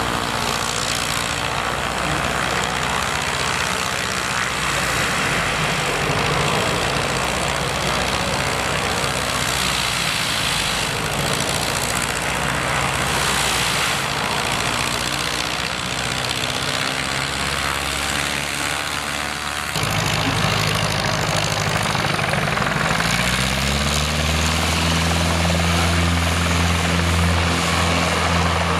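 Piper PA-18-150 Super Cub's four-cylinder Lycoming engine and propeller at takeoff power as it rolls and climbs away. After a cut about two-thirds of the way in, a Pitts S-2A Special biplane's engine runs on the ground; its pitch rises a few seconds later and then holds steady.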